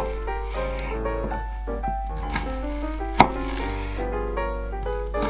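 Kitchen knife chopping an onion on a wooden cutting board: a few sharp knocks, the loudest about three seconds in, over background music.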